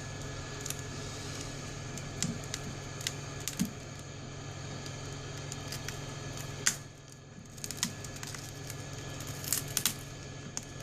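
Scattered small clicks and cracks from a phone repair: a broken LCD panel being pried out of a Sony Xperia Z's frame with a pry tool. A steady low hum runs underneath.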